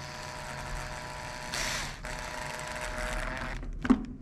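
Cordless drill/driver motor running steadily as it drives screws back into the plastic housing on a two-stroke trimmer's carburetor, then stopping about three and a half seconds in, followed by a sharp click.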